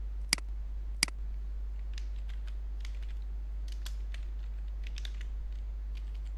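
Two sharp clicks in the first second, then a run of light computer keyboard key taps as a short phrase is typed, over a steady low hum.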